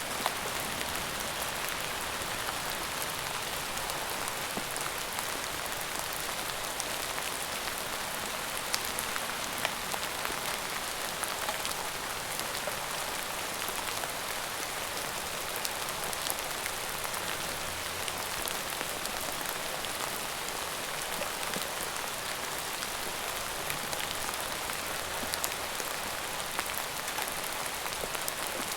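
Steady rain falling, a constant hiss with many individual drops ticking on a surface.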